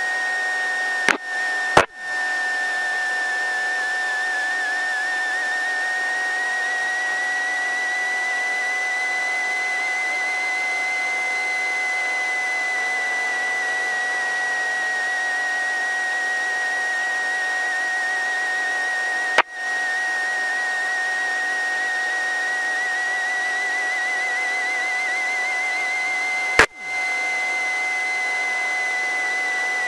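A steady high whine in the helicopter's headset intercom audio that wavers slightly in pitch. It is broken by sharp clicks: two near the start, one about two-thirds through and one near the end.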